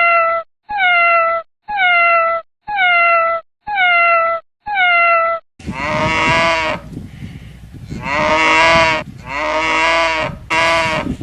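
A cat's meow played six times in a row, evenly spaced about a second apart, each call falling slightly then holding. After about five and a half seconds a different, larger farm animal takes over with four long calls.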